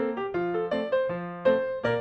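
Background piano music, a quick run of separate notes.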